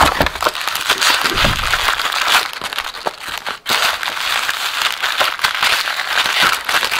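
Plastic wrapping crinkling and crackling as a sealed Topps Chrome baseball card box is unwrapped and opened by hand, with the packs inside rustling. There are many quick sharp crackles with no pauses.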